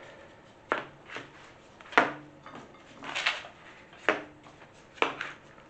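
Light knocks on a metal muffin tin, about five of them a second apart, as a hand touches the filled paper cups one by one while counting them.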